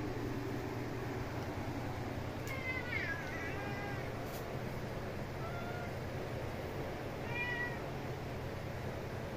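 Domestic cat meowing three times: a wavering meow about two and a half seconds in, a short faint one near the middle, and a clearer one near the end, over a steady low hum.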